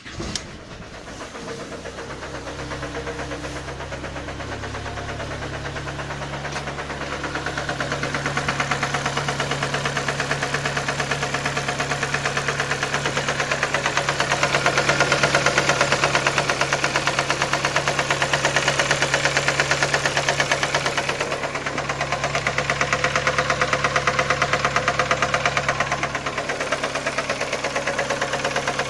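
Skoda Fabia 1.4-litre AZE engine firing up and running with a loud, rapid metallic knock in time with the revolutions, rising in level as the revs climb a little. The oil pump gear had come loose and the camshaft sprocket had slipped, and the owner is unsure whether the knock is the pistons or bent valves.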